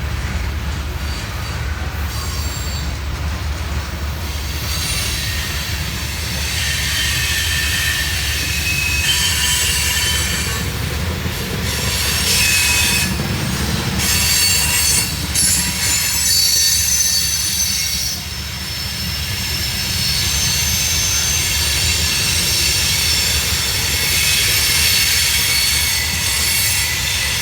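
Freight train cars rolling past with their steel wheels squealing in high, steady tones over a low rumble. The squeal sets in about six seconds in and keeps up, waxing and waning, to the end.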